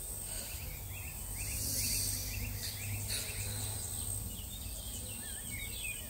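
Garden ambience: an insect's steady high-pitched trill running throughout, with a small bird chirping in short, quick rising notes, repeated over the first few seconds and again near the end.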